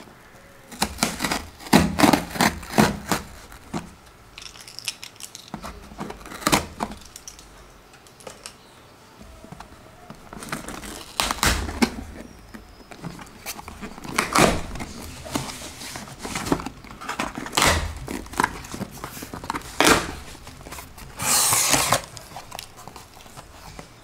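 Cardboard shipping box being opened by hand: packing tape torn off and flaps pulled open, in a string of scrapes, rustles and rips, with one longer rip near the end.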